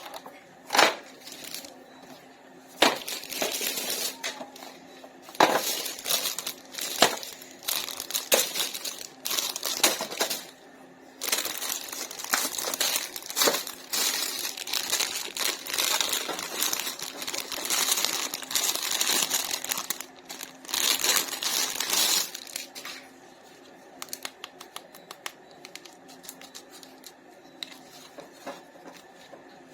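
Plastic toy packaging crinkling as it is handled and pulled open, in a long run of noisy crinkly bursts, then dropping to scattered light clicks and taps near the end.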